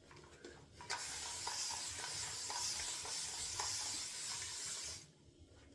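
Shaving brush with a 26mm Maggard mixed knot churning tallow shaving-soap lather: a steady wet, frothy hiss that starts about a second in and stops abruptly near the end.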